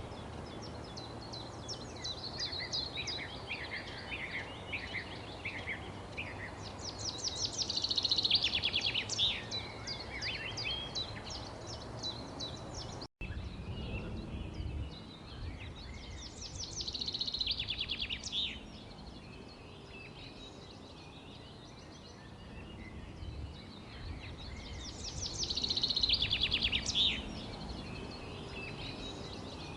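Songbirds chirping over a steady low background rumble, with a loud, rapid, high trill that comes three times, about every eight or nine seconds. A split-second gap about 13 seconds in.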